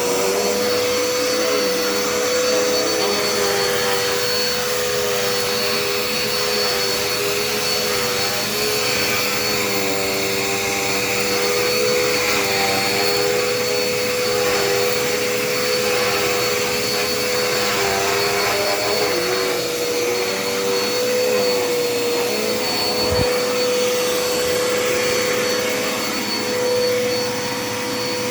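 Dirt Devil stick vacuum running steadily while it vacuums a rug, its motor holding one steady note with a lower tone wavering under it. There is a single low thump about two-thirds of the way through.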